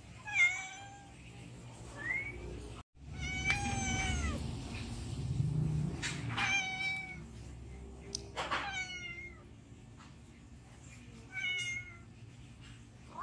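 A hungry stray cat meowing repeatedly to ask for food, about six meows two to three seconds apart, each falling slightly in pitch at its end.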